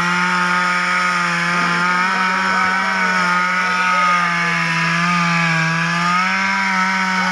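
Petrol two-stroke chainsaw running at high revs as it cuts through a log. Its engine note sags slightly under load about five seconds in, then picks up again.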